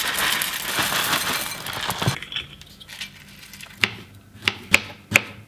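Crunchy cereal clusters poured from a cardboard box into a ceramic bowl: a rattling rush for about two seconds. Then a knife slicing a banana, knocking sharply on a wooden cutting board several times near the end.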